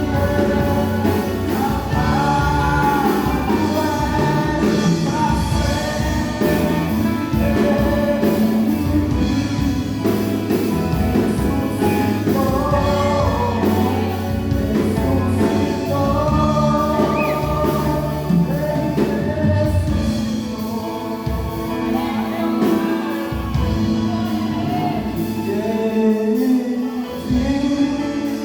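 Band playing a gospel worship song with several voices singing the melody together over the instruments.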